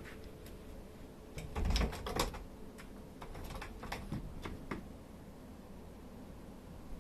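A cluster of light knocks and clicks, with a dull thump about two seconds in.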